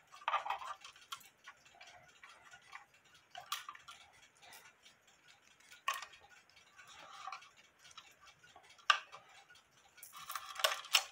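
Cuckoo clock chains clinking and rattling as they are worked loose from the movement, with light, irregular metal clicks and knocks as the movement is lifted out of its wooden case, and a quick flurry of clicks near the end.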